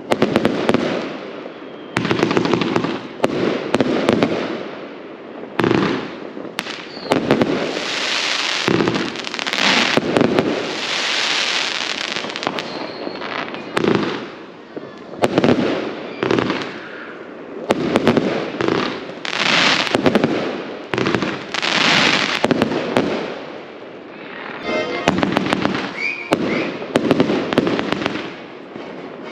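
Fireworks going off without pause: dense volleys of sharp bangs and crackle, the loudness rising and falling in waves.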